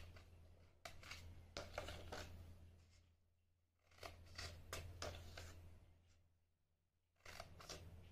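Scissors snipping short slits into the edge of a circle of yellow paper, in groups of quick crisp snips a few seconds apart.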